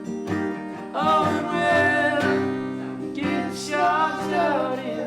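Music: an acoustic guitar strummed, with a wavering melody line over it from about a second in.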